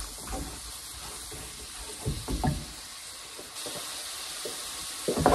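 Mushrooms, celery and onion sizzling quietly in a frying pan, with a few light knocks of a wooden spoon against the pan as they are stirred.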